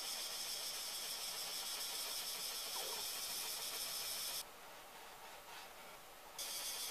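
Steel plane iron being rubbed on a coarse diamond sharpening plate, honing the bevel: a continuous high scratchy hiss that drops away for about two seconds after the middle, then resumes.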